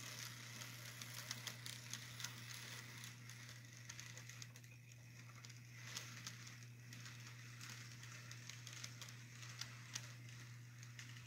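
Faint irregular clicking and light rattling of model passenger cars rolling past on the track, over a steady low hum.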